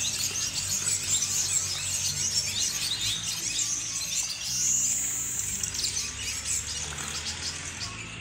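Otter calling with rapid high-pitched chirps and squeaks, with one longer squeal that rises and falls about five seconds in, over a steady low hum.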